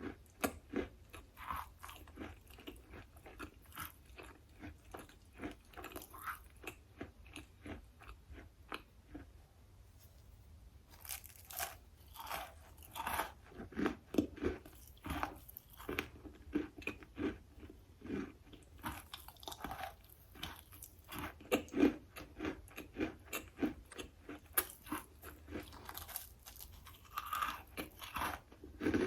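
Close-up chewing and crunching of a hard, chalky material: a steady run of crisp bites and grinding chews, a few a second. It goes softer for a few seconds about a third of the way in, then comes back louder and denser.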